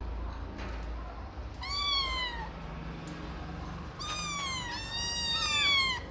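Kittens meowing in thin, high-pitched voices: one falling meow about two seconds in, then more meows from about four seconds in, two of them overlapping.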